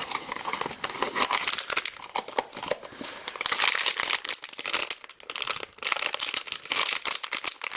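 A toy blind box being opened by hand, its packaging crinkling and tearing in a run of rapid, irregular crackles.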